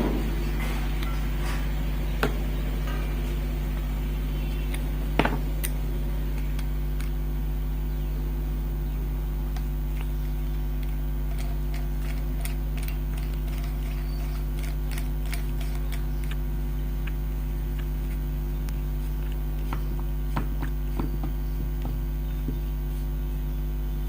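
Steady electrical hum with several fixed tones, with a few sharp clicks and light metallic ticks from small hammer drill parts being handled and fitted, the loudest about 2 and 5 seconds in.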